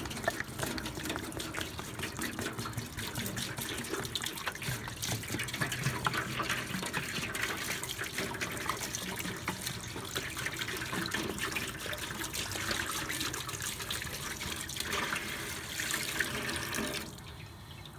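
Distilled white vinegar pouring from a plastic gallon jug and splashing onto a rusty steel artillery wheel lying in a metal tub; the pour stops near the end.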